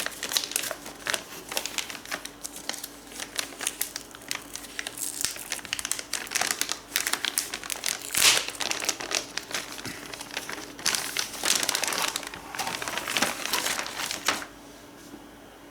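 Packaging crinkling and rustling in irregular bursts as it is handled and opened, stopping about a second before the end.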